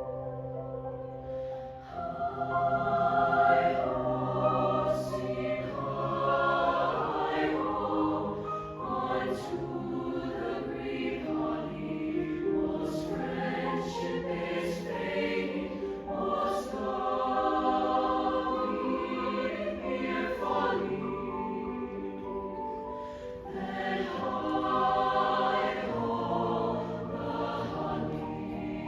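Mixed choir singing in several parts, holding sustained chords with crisp consonants cutting through at intervals.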